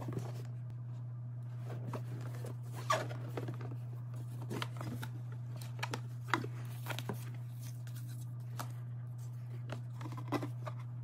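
Cardboard gift box and paper packaging being handled: scattered rustles, scrapes and light taps as the box lid is lifted and an envelope is taken out, over a steady low hum.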